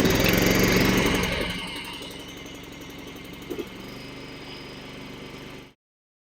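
Honda lawnmower's single-cylinder four-stroke engine running to warm the oil before an oil change. It is loud for about a second and a half, then settles to a quieter, steady run, and cuts off suddenly near the end.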